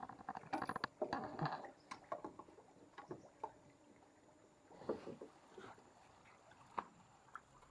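Faint, irregular knocks, rattles and light water sounds from a small fishing boat, in clusters that are busiest in the first two seconds, with a sharper knock near the end.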